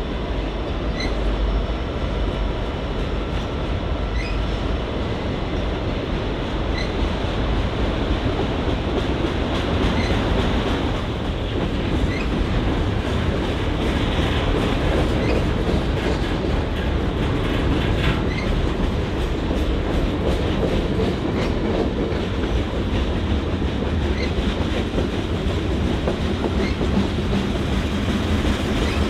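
Freight train cars rolling past on the track: a steady rumble of steel wheels on rail with faint clicks every few seconds.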